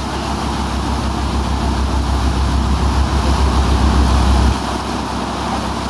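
Steady low rumble of a motor yacht under way, engine drone mixed with the rush of wind and water; the lowest rumble eases about four and a half seconds in.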